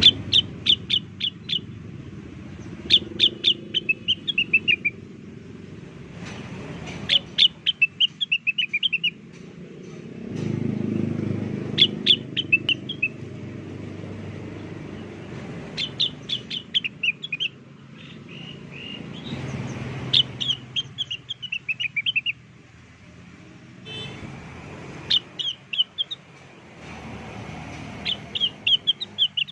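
Blue-winged leafbird (cucak wilis) singing as a lure call. It repeats short phrases every few seconds, each a quick run of sharp, high notes that falls into a chattering trill.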